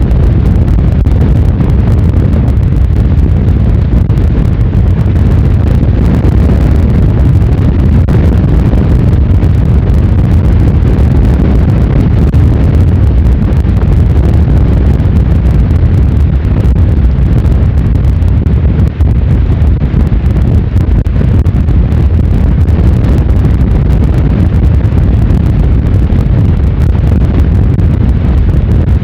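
Strong wind buffeting the microphone: a loud, steady low rumble with no let-up, over anything else on the beach.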